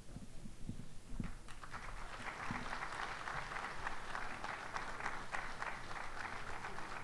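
Audience applauding: many hands clapping, setting in about a second and a half in and carrying on steadily.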